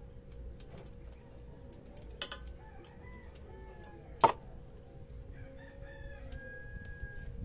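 A rooster crowing, its call ending on a long held note. Light clicks and one sharp metal clink about four seconds in come from the work under the motorcycle engine.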